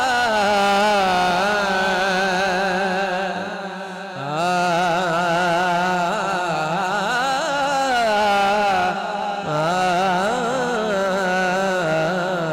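A man sings a Punjabi naat into a microphone, drawing out long ornamented notes whose pitch wavers and turns quickly, over a steady lower note. The line breaks off briefly about four seconds in and again about nine seconds in.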